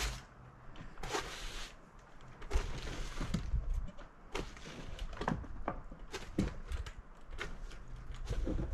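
Irregular knocks and thunks of sawn wooden boards being handled and stacked, with a stretch of wood scraping across wood about a second in, over a low steady hum.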